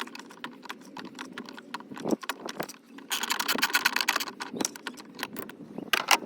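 A socket wrench with an extension and other metal hand tools clicking and rattling, with a dense run of quick metallic clicks about three seconds in, as the battery hold-down bolt is worked loose.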